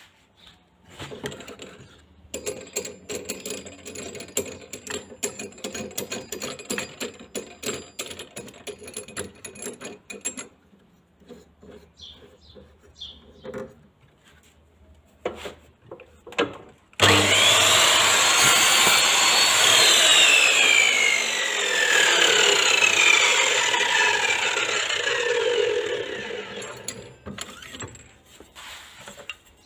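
Clattering and knocks for the first ten seconds or so, then about 17 seconds in a TOTAL 10-inch 1800 W mitre saw's motor starts suddenly and runs with a high whine that rises and then falls. Near the end it cuts off and winds down.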